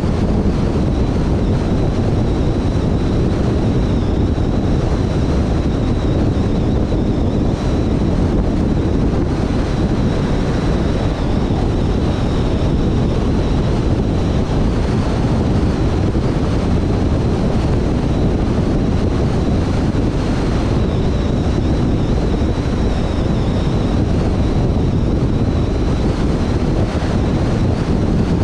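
Steady road noise from a car driving at motorway speed: tyre noise on the asphalt with wind buffeting the microphone, and a faint steady high whine.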